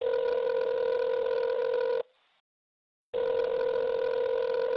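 Telephone ringback tone heard down the line: a steady buzzy tone rings for about two seconds, stops for about a second, then rings again for about two seconds.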